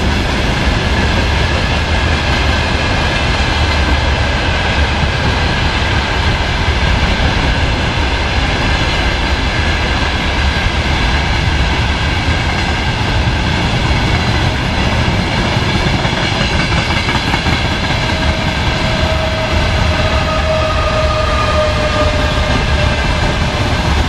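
Freight wagons (tank cars, gondolas and boxcars) rolling past close by: a steady rumble and clatter of wheels on the rails. A faint steady whine comes in for a few seconds near the end.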